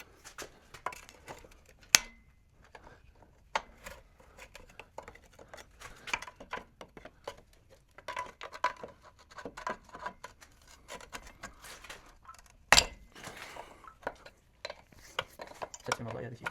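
Hand tools working on the rear prop-shaft bolts of a BMW E36: irregular metallic clicks and clinks, with two sharp metal knocks, one about two seconds in that rings briefly and a louder one near the end.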